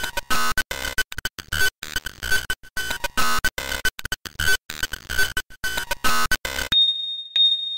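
Glitchy, stuttering electronic logo jingle, chopped into rapid fragments with abrupt cuts. Near the end it gives way to one steady high tone with short pings about twice a second.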